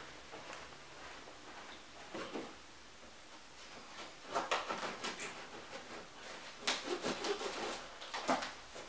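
iMac's cardboard shipping box being handled and shifted: several short bursts of rubbing and scraping.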